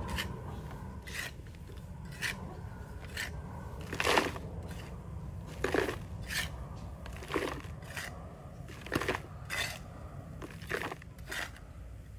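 A series of short, sharp scraping strokes by hand, coming irregularly about once a second, with the loudest just past four seconds in.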